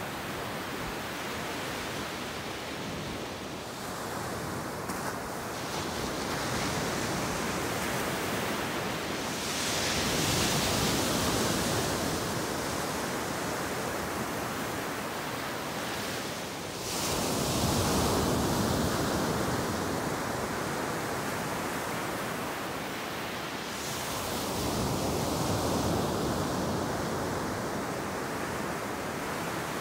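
Ocean surf breaking on a sandy shore: a steady rush of foaming water that swells louder three times, about seven seconds apart, as bigger waves break.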